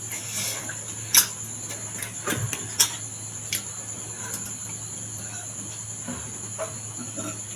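Mouth sounds of eating: scattered soft clicks and smacks of chewing, the sharpest about a second in and just under three seconds in, over a steady high-pitched whine.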